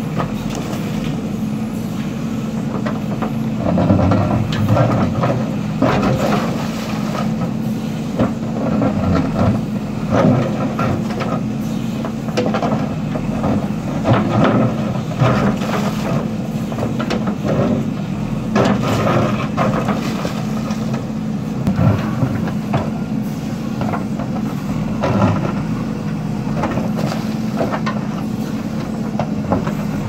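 JCB 3DX backhoe loader's diesel engine running steadily under load, with irregular clanks and scrapes as the backhoe bucket digs into a bank of earth and broken brick.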